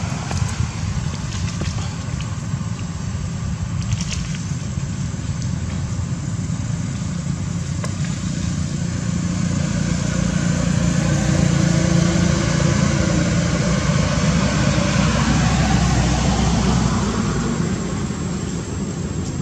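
A motor vehicle's engine running, with a steady low rumble that grows louder about halfway through and then eases off.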